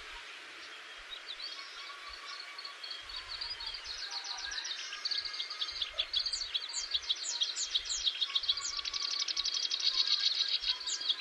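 Songbirds chirping and trilling in rapid high runs, several overlapping, growing louder and busier from about four seconds in, over a steady background hiss.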